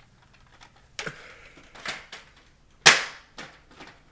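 A few sharp clacks or pops, about four in all, the loudest nearly three seconds in with a short hiss trailing after it.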